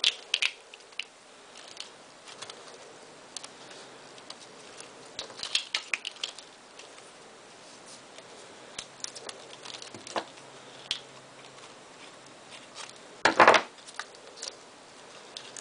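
Craft tape being pressed around the cut edges of chicken wire: scattered small crinkles, clicks and light scrapes from the tape and wire, with one louder, brief rasp about thirteen seconds in.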